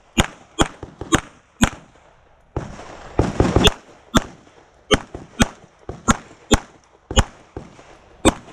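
Semi-automatic pistol fired in quick pairs, about half a second between the shots of each pair, about a dozen shots in all. A shooter is engaging targets two rounds each. About three seconds in, a rougher stretch of noise runs between the shots.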